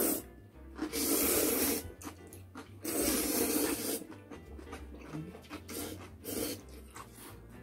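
Ramen noodles slurped from a bowl: two long, loud slurps about two seconds apart, then a few shorter ones near the end.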